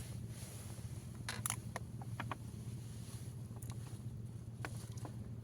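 Steady low hum with a few scattered short clicks and taps, most of them bunched together about a second and a half in.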